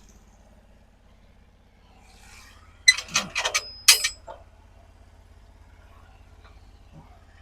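A quick cluster of sharp metallic clanks and ratchet-like clicks, about three seconds in and lasting about a second and a half, from the steel fittings of a Norwood HD36 portable sawmill being worked by hand, over a faint steady low hum.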